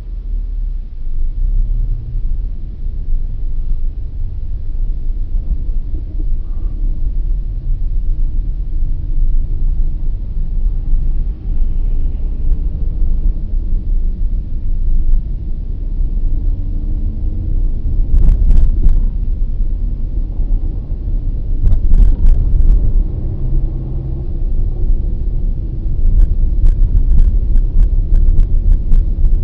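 Low rumble of a Skoda Octavia A7 heard inside its cabin as it pulls away from a standstill and speeds up on a snow-covered road, with engine and tyre noise. Scattered sharp clicks and knocks come in the second half.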